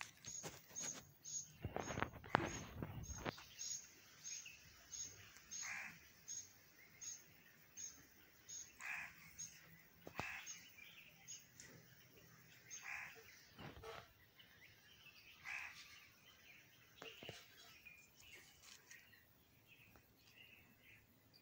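Faint outdoor ambience of birds calling: a short high note repeated about three times a second, slowing as it goes, with lower falling calls every couple of seconds. A louder, rough noise lasts about a second, starting about two seconds in.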